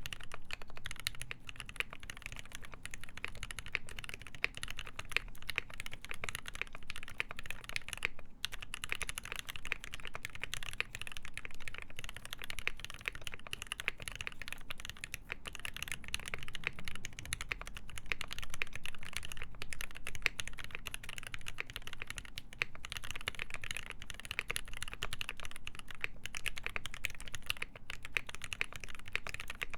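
Steady, fast typing on a KBD8X MKII mechanical keyboard with lubed ZealPC Tealios linear switches, a full brass plate, GMK keycaps and foam-filled case: a dense run of key clicks, with a brief pause about eight seconds in.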